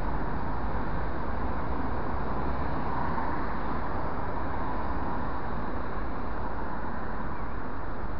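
Steady city traffic noise: cars driving through a wide intersection, engines and tyres on asphalt, with no single event standing out.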